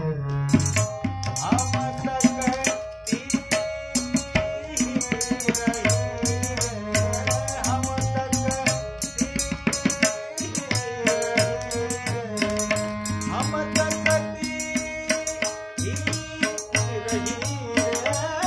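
Harmonium with tabla accompaniment playing a classical Kumauni holi song, the tabla strokes running fast and dense over the held harmonium notes. A man's singing voice comes in at places.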